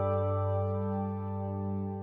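Background music: calm, sustained ambient keyboard chords.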